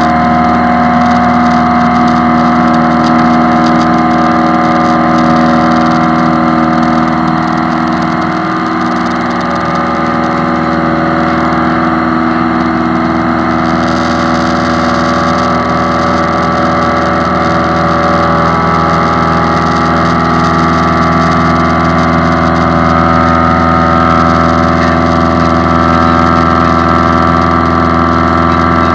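Single-engine light plane's piston engine and propeller at full takeoff power, a steady drone heard from inside the cockpit through the takeoff roll, liftoff and climb-out.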